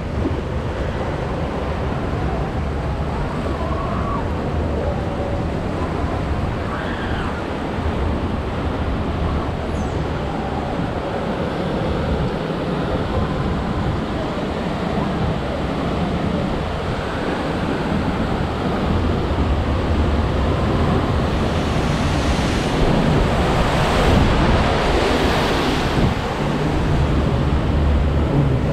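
Rushing, churning water of a river rapids ride flowing around the raft, with wind buffeting the microphone. The water grows louder and more splashy near the end.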